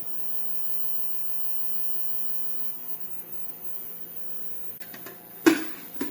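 Steady electrical hum with hiss, then a sudden loud knock or clatter about five and a half seconds in.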